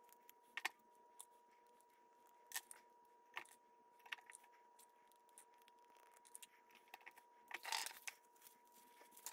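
Near silence, broken by a few faint clicks and taps as small parts are handled on a workbench, with a short burst of handling noise near the end, over a faint steady high tone.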